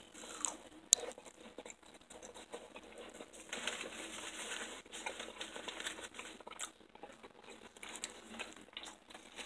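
Paper towel rustling and crinkling as fried breaded shrimp are handled on it, with scattered small clicks and a sharp click about a second in.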